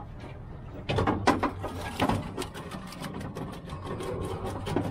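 Wire-mesh crayfish pot clattering and rattling as it is hauled aboard with live crays inside: a run of rapid clicks and knocks that starts about a second in, loudest near the start.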